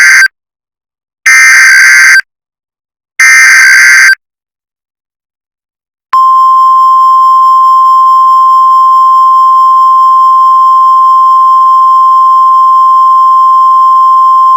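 Emergency Alert System SAME header: three loud, buzzy data bursts of about a second each, the first already under way. After a two-second gap, the long, steady, shrill attention tone starts about six seconds in and holds to the end.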